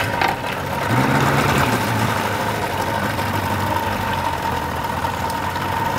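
Boat's outboard motor running steadily, a low engine hum with a constant whine above it.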